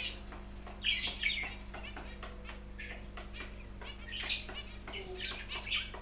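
Pet budgerigars chirping and chattering in short, scattered high calls, with louder squawks about a second in and again over the last two seconds.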